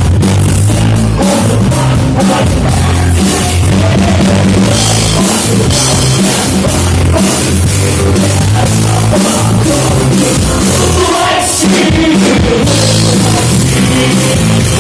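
A rock band playing loud live music, with a drum kit beating steadily over bass and guitars; the sound thins briefly about eleven and a half seconds in before the full band comes back.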